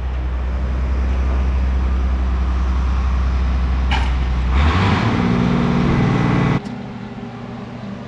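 Tractor engine and feed mixer wagon running steadily while unloading feed into a cattle bunk. A little past halfway the machine's pitch rises and shifts. Near the end the sound cuts abruptly to a quieter steady hum.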